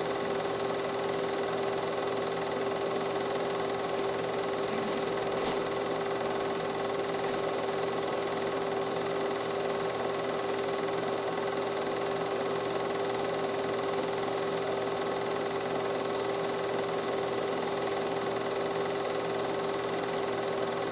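Film projector running steadily: a constant mechanical whir with a steady hum that does not change.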